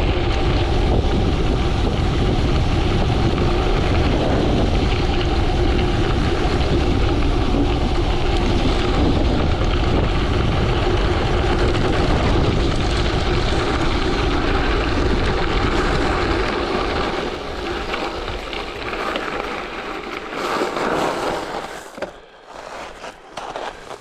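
Wind rushing over the camera microphone and gravel bike noise during a fast downhill descent, steady and loud at first. The rush eases off about three-quarters of the way through as the bike slows, with scattered clicks and knocks near the end.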